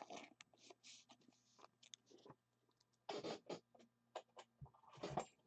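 Near silence broken by faint, scattered scratching and rustling, a little louder about three seconds in and near the end: a trading card being handled and shifted in its sleeve.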